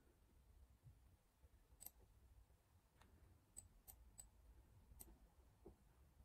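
Faint, sharp computer mouse clicks, about five or six of them spread irregularly, over a low steady room hum.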